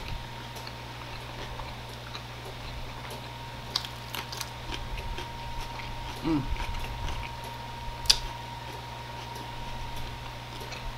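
Quiet eating sounds: a few soft mouth clicks and smacks several seconds apart, with a brief falling vocal sound about six seconds in, over a steady low electrical hum.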